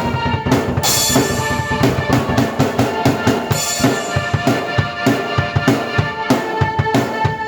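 Drum kit and keyboard playing together: a busy beat of fast bass-drum and snare strokes, with a cymbal crash about a second in, over sustained keyboard chords.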